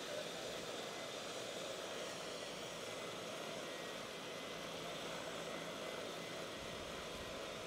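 Helicopter's turbine engine running steadily on the ground before takeoff, its rotor turning: an even rushing noise with a thin steady whine, unchanging throughout.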